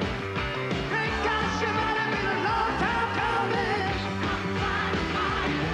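Live rock and roll number from a band led by grand piano, with drums and singing over a steady beat.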